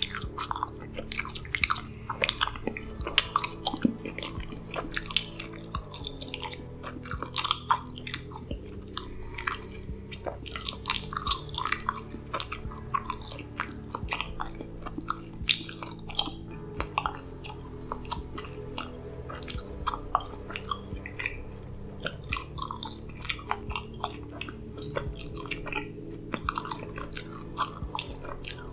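Close-miked gum chewing: dense, irregular wet clicks and snaps from the mouth, over a low steady drone whose pitch shifts every few seconds.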